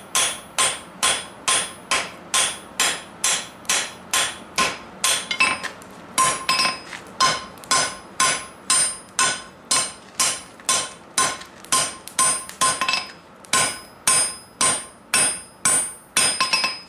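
Hand hammer striking a red-hot steel bar on an anvil at a steady pace of about two blows a second, each blow ringing from the anvil. There is a short break about five and a half seconds in. The smith is forging an angle into the bar's hot end, upsetting it.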